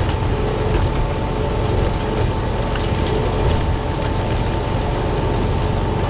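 ArmaTrac 1104 Lux tractor running steadily while it pulls a Vogel Noot inter-row cultivator through maize, the cultivator working the soil between the rows. A faint steady high whine runs over the engine noise.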